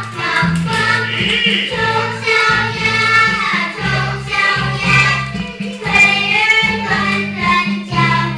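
A group of children singing a song over an instrumental backing track.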